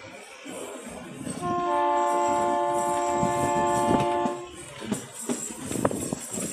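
Narrow-gauge train's horn sounding one long blast of about three seconds, a chord of several steady tones, over the rattle of the running train.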